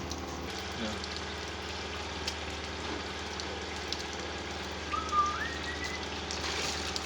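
Water fountain running, its falling water making a steady hiss like rain. About five seconds in there is a brief rising whistle.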